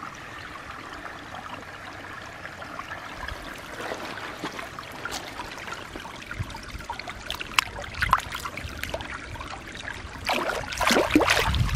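Shallow stream water trickling steadily, with splashing as a toy crocodile is swished through it, loudest near the end.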